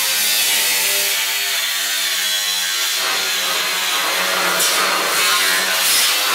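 Angle grinder with a cut-off disc cutting through the old sheet metal of a Ford F100 truck body, running continuously with a harsh grinding hiss. The motor's pitch wavers slightly as the disc loads up in the cut.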